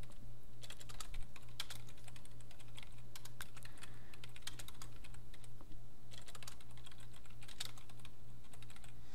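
Computer keyboard typing: quick runs of key clicks with short pauses between them, over a faint steady hum.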